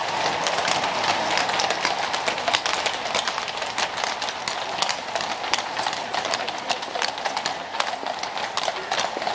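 Hooves of several ridden horses clip-clopping on brick paving: many quick, irregular hoof strikes over a steady background noise.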